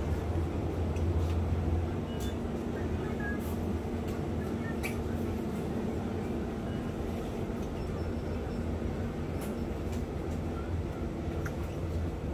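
Steady low rumble with a faint hum, and a few light clicks scattered through it.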